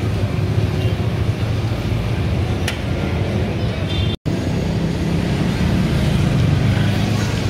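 Steady low roar of street traffic mixed with the stall's lit gas burners under cast-iron sizzling plates. It cuts out for a moment about four seconds in.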